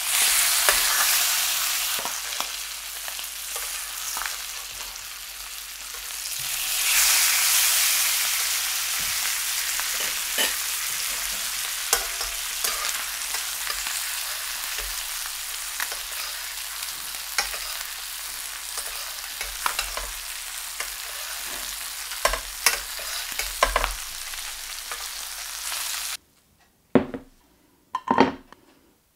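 Sea bass fillets sizzling in butter and rapeseed oil in a steel frying pan, with scattered spattering pops; the sizzle swells just after a fillet is turned onto its skin and again about seven seconds in. Near the end it cuts off suddenly, followed by two knocks as a ceramic plate is set down on a wooden table.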